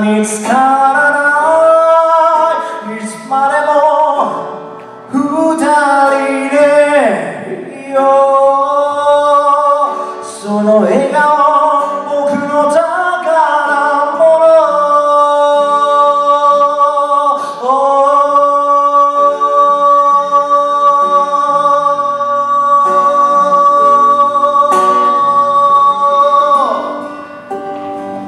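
A man singing live with acoustic guitar accompaniment, ending a phrase on one long held note of about nine seconds near the end.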